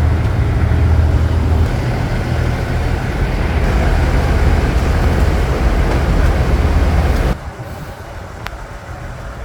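Diesel railcar train running, a loud low rumble with a steady engine hum, which cuts off abruptly about seven seconds in, leaving a quieter steady noise.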